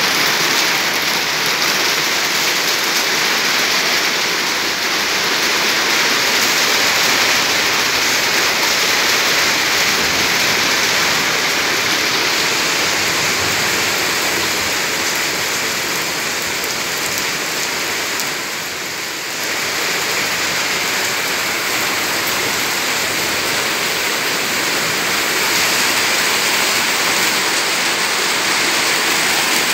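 Heavy rain falling steadily on a concrete yard and nearby roofs, a dense, even patter that eases slightly for a moment about two-thirds of the way through.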